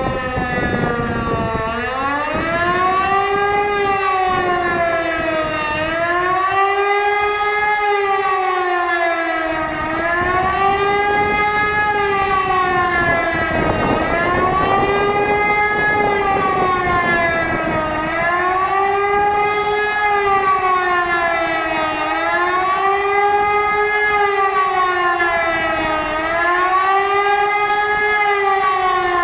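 E57 electromechanical civil-defence siren winding up to pitch in the first two seconds, then sounding a steady rising-and-falling howl that swings up and down about every four seconds. This undulating tone is the German public-warning signal, sounded here as a test alarm.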